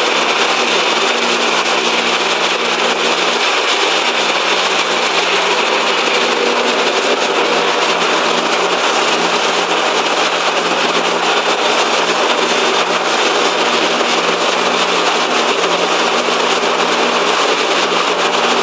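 Turbocharged four-cylinder engine of a modified car running steadily at an even speed on a dyno, not being revved, with a constant low hum and a loud rushing noise.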